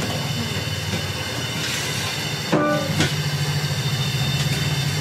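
Steady low engine drone with a slight pulse, and a brief higher-pitched tone about two and a half seconds in.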